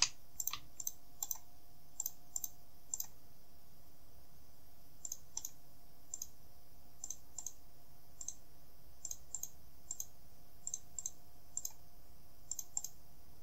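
Computer mouse and keyboard clicks, irregular and often in quick pairs, over a faint steady hum.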